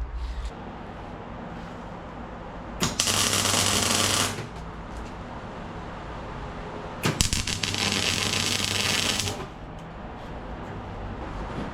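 Electric arc welding in two runs, each a crackling, buzzing weld with a steady hum underneath: the first is about a second and a half long and starts about three seconds in, the second about two seconds long and starts about seven seconds in.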